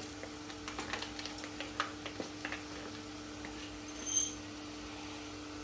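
Faint handling clicks, then a short, high metallic ring about four seconds in as a small steel cup clinks while scooping and tipping proso millet into a pressure cooker. A steady low hum runs underneath.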